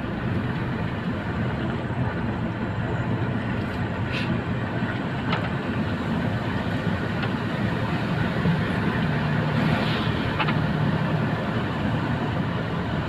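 Steady engine and tyre noise from inside a moving car's cabin, a low hum with a few faint clicks.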